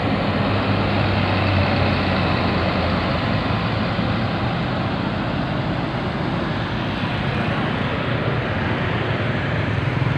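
Tour coach driving past close by with its engine running and tyres on the road, the low engine hum fading as it pulls away, followed by traffic noise from a car and a motorcycle passing close.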